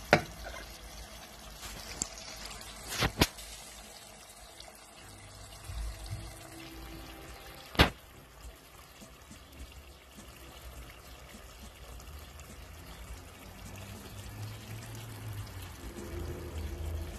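Chicken tikka pieces cooking in oil in a pot over a low flame, with a steady sizzle and bubbling. The yogurt's water has cooked off and the oil has risen. A few sharp clicks cut through: one at the start, two about three seconds in and one near eight seconds.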